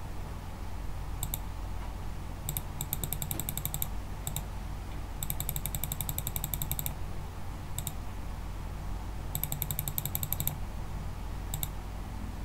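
Computer mouse button clicking: a few single clicks, and three runs of fast repeated clicks at about ten a second, over a steady low hum.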